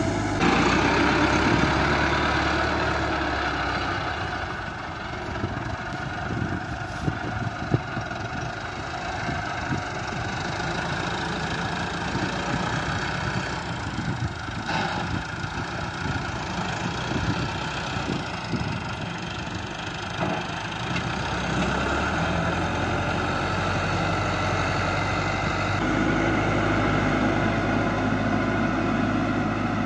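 Massey Ferguson 385 tractor's diesel engine running steadily as it pulls a tine cultivator through the soil. The engine drone drops somewhat a few seconds in and comes back louder later on.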